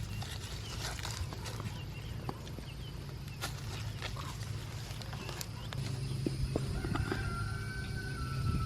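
Digging in garden soil by hand: scattered short scrapes and small knocks as dirt is moved and potatoes are handled. From about six seconds in, a steady low hum joins.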